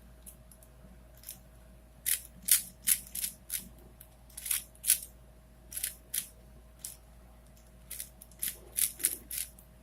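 Plastic 4x4x4 Rubik's cube (Rubik's Revenge) being turned by hand: quick, sharp clacks of the layers being twisted, coming irregularly in short runs of a few turns.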